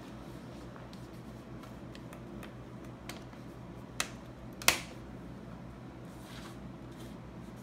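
Plastic clicks from the laptop's screen bezel and touch panel being pressed into the lid, with two sharp snaps about four seconds in, the second the louder, over a steady low hum.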